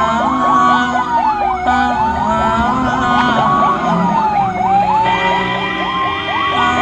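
Ambulance siren wailing, its pitch rising and falling slowly about every three seconds, with a fast repeating yelp laid over it. Engine and road rumble lie beneath.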